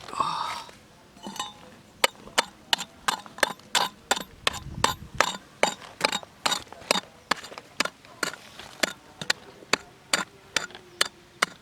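A steady series of sharp taps, about three a second, each with a short ring, starting about two seconds in: a hand tool striking hard material over and over.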